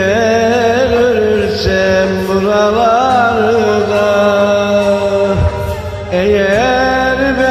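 Man singing a wordless, ornamented melody with long wavering held notes over a karaoke backing track; the vocal line breaks off about five and a half seconds in and starts again a moment later.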